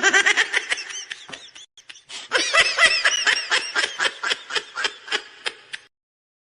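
High-pitched laughter sound effect: a short burst of laughing, then a long run of quick giggles, about five a second, that fades out near the end.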